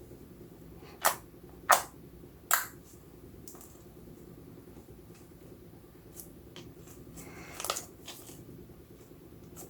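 Slime being worked by hand, giving sharp sticky pops and clicks: three loud ones about a second in, scattered fainter ticks, and a quick cluster just before the end, over a low steady hum.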